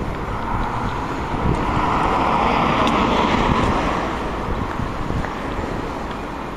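A road vehicle passes close by, its noise swelling over about two seconds and then fading, with wind on the microphone.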